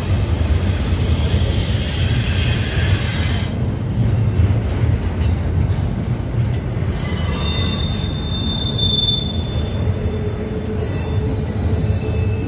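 A train passing: a steady heavy rumble of rail cars, with a thin high wheel squeal rising in about seven seconds in and fading out about two seconds later.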